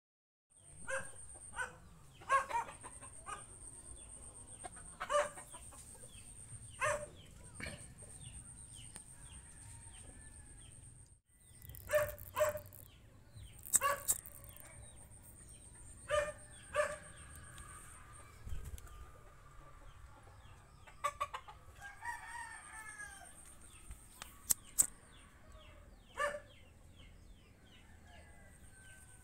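Chickens clucking at intervals, with a rooster crowing, and a few sharp clicks.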